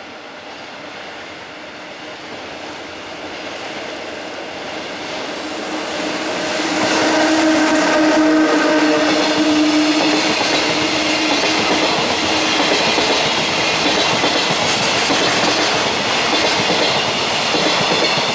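A JR Freight EF66 electric locomotive approaches and passes with a long container freight train, growing to full loudness about six seconds in. A steady tone from the locomotive lasts a few seconds as it goes by. Then the container wagons roll past with a continuous rhythmic clatter of wheels over the rail joints.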